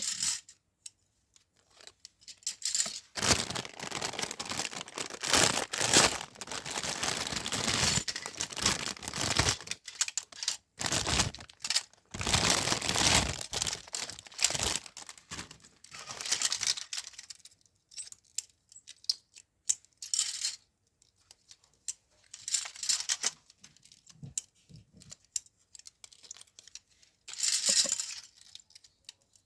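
Parcel packaging being torn open and crinkled by hand: long stretches of rustling and tearing, then shorter separate bursts of crinkling near the end.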